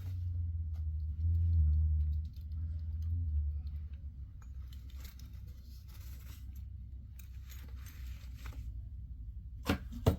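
Handling noise as a belt and fursuit tail are put on: a heavy low rumble of bumping and rubbing at first, then fabric and fur rustling, and two sharp clicks near the end.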